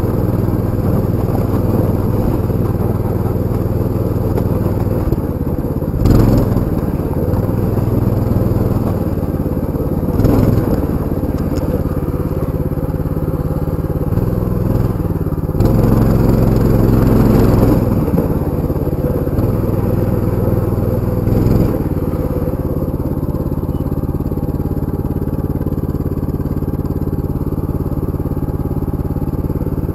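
Small off-road motorbike engine running as the bike rides over rough dirt, mostly steady, with brief louder surges about six and ten seconds in, a longer one around sixteen to eighteen seconds, and another near twenty-one seconds.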